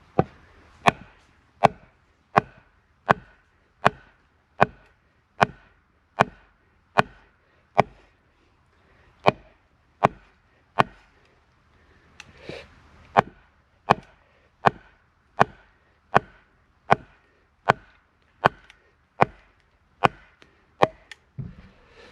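Wood being chopped with a blade: steady, sharp strikes about one every three-quarters of a second, with two short pauses partway through.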